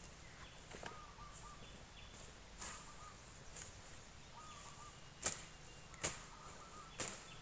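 Three sharp knocks or thwacks in the second half, a little under a second apart. Faint short bird calls repeat throughout.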